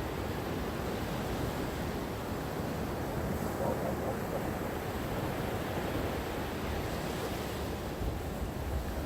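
Gentle ocean waves washing in with a steady rush, one wave swelling a little louder just under four seconds in.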